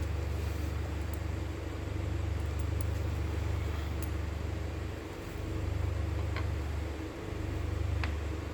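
Steady low rumble of background noise, with a few faint light clicks, one about halfway through and two more near the end.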